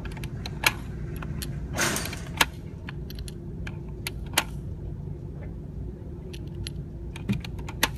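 Gunshots on a firing range: about four loud, sharp reports at irregular intervals with fainter cracks between, over a steady low hum.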